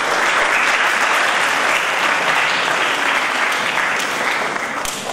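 An audience of many people applauding, a steady clatter of clapping hands that starts to die away near the end.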